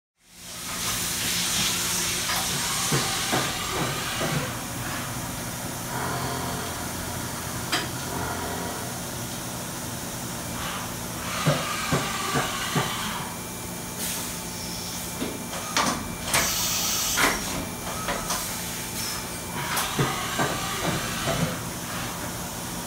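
Fadal VMC 4525HT vertical machining center milling a part held in a vise: the spindle and cutter run steadily with a hiss and a low hum. Irregular sharp clicks and knocks sound throughout the cut.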